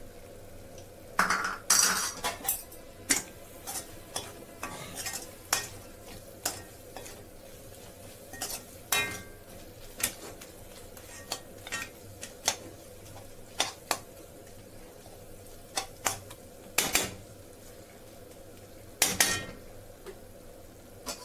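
Metal spoon stirring chicken pieces in a metal kadai, scraping and knocking against the pan in irregular strokes, loudest about a second in and near the end, as coriander-cumin powder is mixed in. A faint sizzle of the chicken frying lies underneath.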